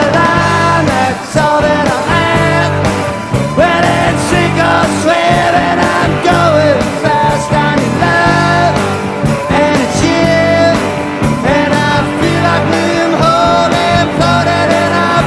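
Rock song with a singing voice over guitar and drums.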